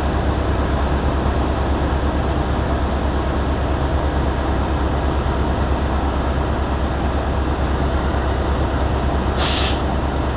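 Steady engine and drivetrain rumble of a New Flyer XD60 articulated diesel bus heard from inside the cabin, with a strong, even low throb. A short hiss comes near the end.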